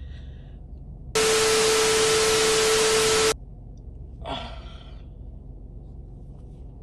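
A woman crying: a breath, then a shaky sigh about four seconds in. Between them comes a loud burst of static hiss with a steady hum in it, about two seconds long, that starts and stops abruptly.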